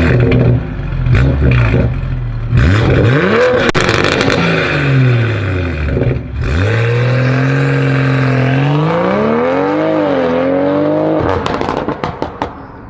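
BMW M340i's turbocharged 3.0-litre straight-six revved repeatedly through its exhaust, the revs rising and falling several times, then pulling away. Near the end the throttle is lifted and there is a rapid burst of exhaust crackles and pops as the car fades into the distance.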